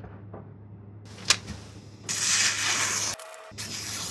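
A paper packet being handled and opened: a sharp click about a second in, then about a second of loud rustling, crinkling paper, with softer handling noise near the end over a steady low room hum.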